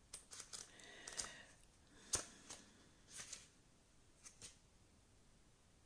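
Faint paper rustling and a few soft clicks from the pages of a small card guidebook being leafed through, with one sharper click about two seconds in.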